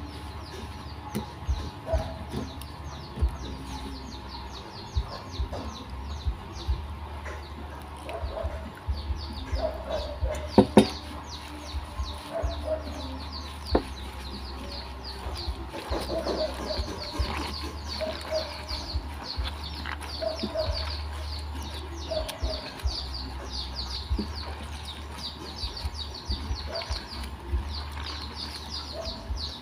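Chickens clucking now and then over steady, rapid high-pitched chirping, with a sharp knock about ten seconds in.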